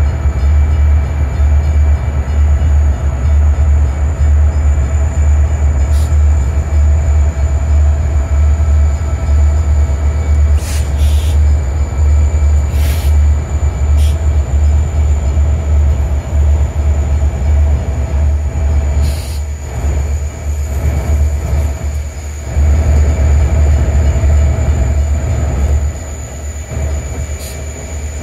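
Freight train's diesel locomotives passing slowly, their engines giving a loud, steady, deep rumble. A thin high wheel squeal runs over it, and there are a few sharp clicks of wheels over rail joints. The rumble eases slightly near the end as the last locomotive gives way to hopper cars.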